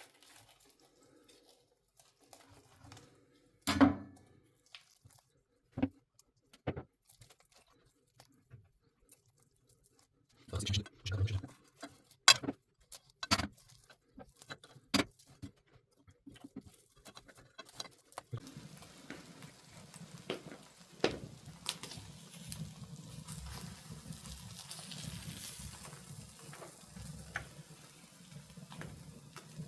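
Scattered clicks and knocks of a knife and utensils working on a spit-roasted chicken as its wings are cut off. About two-thirds of the way in, a steady hiss with a low hum sets in.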